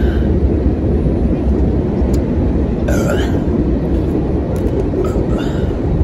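Wind buffeting the microphone: a loud, steady low rumble, with a brief high chirp about halfway through.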